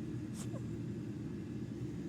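A single short cough about half a second in, the cough of a pet with a collapsed trachea and an enlarged heart, over a steady low hum.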